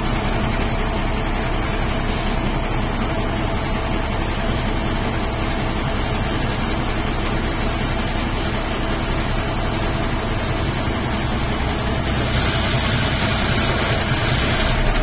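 Bus engine running steadily with road noise, heard from inside the driver's cabin as the bus rolls slowly along. A brighter hiss joins about twelve seconds in.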